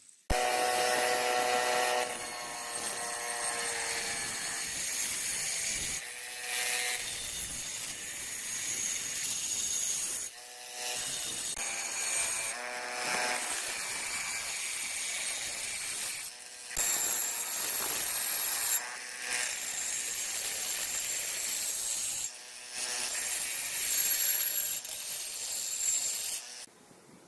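Tool work on an old axe or its handle: continuous scraping with a steady high whine, broken by about half a dozen short pauses.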